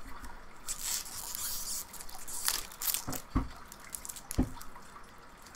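Rustling and crinkling from handling Magic: The Gathering booster pack foil wrappers and cards: a spell of rustle, then several sharp crackles, a few of them with a soft knock.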